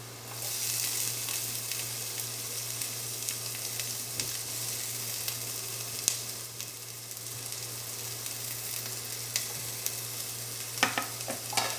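Crushed ginger, green chilli and garlic sizzling in hot oil with sautéed onions, the sizzle jumping up about a third of a second in as they hit the pan. A spatula clicks and scrapes against the pan as they are stirred, with a cluster of clinks near the end.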